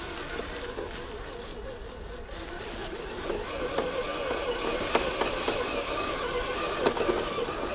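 Electric drive motor and gearbox of a 1/12-scale RC 6x6 truck whining as it drives over dirt and leaves, the pitch wavering with the throttle. It grows louder and more unsteady from about three seconds in, with a few sharp clicks.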